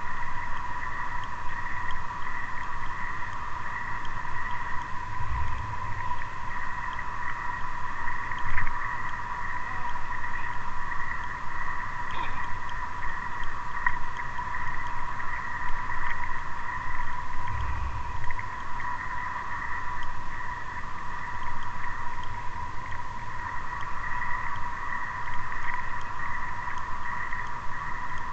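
Car driving along a road: a low rumble from the tyres and engine that swells now and then, under a steady high-pitched tone that holds throughout.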